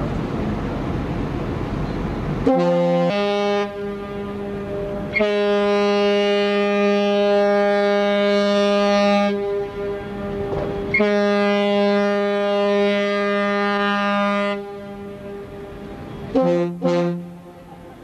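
MV Funchal's deep ship's horn sounding a series of blasts over a rushing noise: a short blast that settles onto its pitch, two long blasts of about four seconds each, then two quick short blasts near the end.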